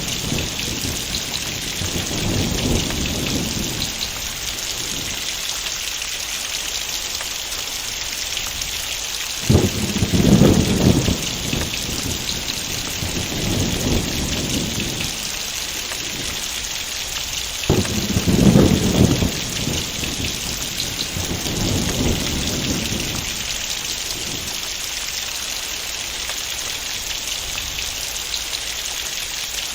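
Heavy rain falling steadily, with thunder rolling through it: a rumble dying away at the start, then sharp claps about ten and eighteen seconds in, each followed by several seconds of rolling rumble.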